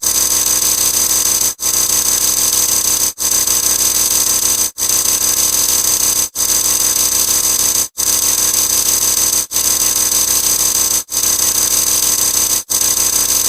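Harsh, steady electric buzzing sound effect, played about eight times in a row. Each play lasts about 1.6 seconds, with a very short break between plays.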